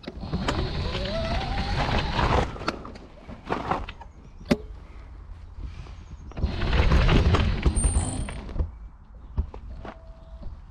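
Folding mobility scooter jolting and rattling over a rough path, in two loud stretches with a brief rising whine in the first. Between them come a few sharp knocks.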